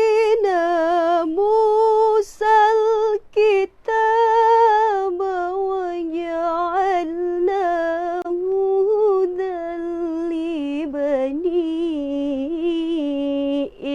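A single high voice recites the Quran in melodic tilawah style, unaccompanied. It holds long, ornamented notes that waver up and down in pitch, with a few brief breaks for breath in the first few seconds.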